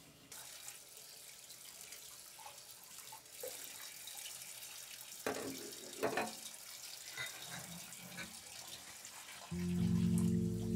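Water running from a kitchen faucet into a sink, with a couple of sharp knocks of dishware about five and six seconds in. Music with low, held notes comes in near the end.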